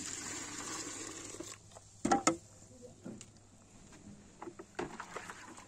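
Hot liquid splashing into a plastic bucket for about a second and a half, then a short, loud clatter of vessels about two seconds in, followed by a few light knocks as the bucket is handled.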